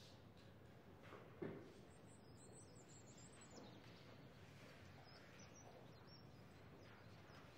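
Near silence: faint room tone, with one soft knock about a second and a half in.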